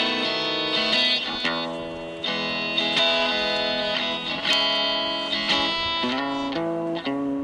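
Compact travel electric guitar, plugged in, strummed in chords that change every second or so.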